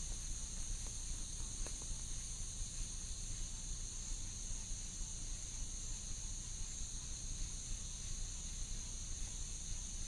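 A steady high-pitched insect chorus trilling without a break, over a low rumbling background.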